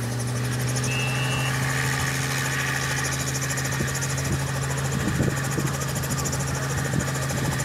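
Robinson R44 helicopter running on the ground: its six-cylinder Lycoming piston engine and rotor give a steady low drone with a fast, even pulsing over it.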